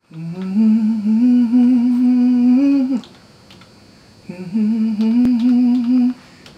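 A man humming a tune with closed lips in two long, slightly wavering held phrases, the second starting about four seconds in, with a few soft clicks from a computer keyboard.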